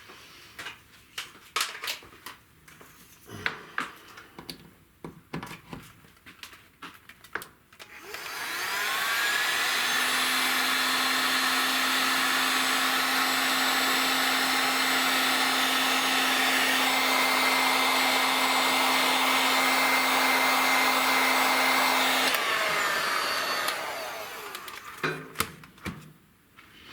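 Heat gun blowing hot air to shrink heat-shrink tubing over freshly soldered wire joints. It spins up with a rising whine about eight seconds in, runs steadily with a hum for about fifteen seconds, then winds down. Small clicks and handling noises come before it.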